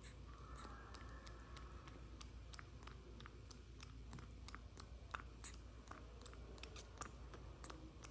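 Faint, irregular small clicks and mouth smacks of a baby macaque sucking milk through a plastic straw.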